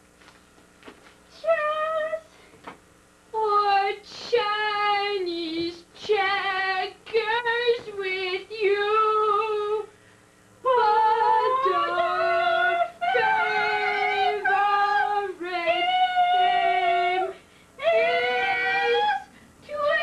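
A woman singing a series of held, wavering notes in short phrases with brief pauses between them.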